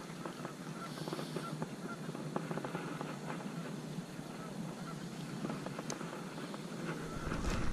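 Geese honking now and then across the water, with a few light clicks. Low handling rumble comes in near the end.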